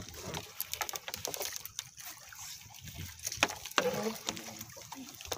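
Wet monofilament gill net being hauled and picked clear by hand on a wooden outrigger fishing boat: an irregular patter of clicks and rustles, with water sloshing.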